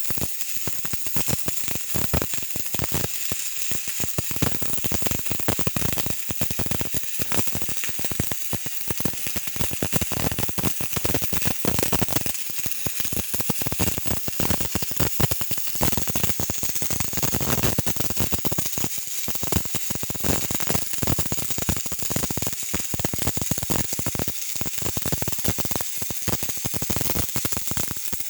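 Dense, irregular mechanical clicking and rattling over a steady hiss, from metal parts of a mechanism being worked.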